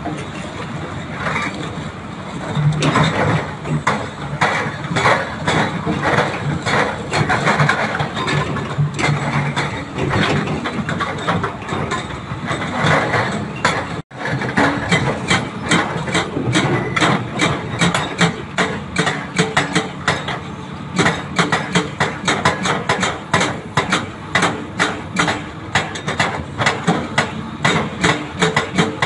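Hydraulic breakers (rock hammers) on a Doosan and a Hyundai excavator pounding hard rock in rapid repeated blows, several a second, over the excavators' diesel engines running. The sound breaks off for a moment about halfway through, then the blows resume in a more even rhythm.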